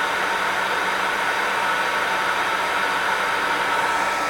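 Handheld hair dryer running steadily: an even rush of blown air with a steady motor whine.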